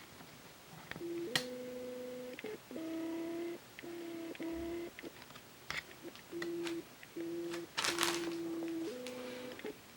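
A sequence of steady electronic beep tones, each held about half a second to a second, stepping between a few fixed pitches, with scattered light clicks and a short hissy burst about eight seconds in.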